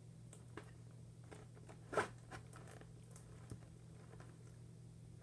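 Sticky homemade glue slime being worked by hand: faint wet clicks and squelches, with one louder smack about two seconds in. A steady low hum runs underneath.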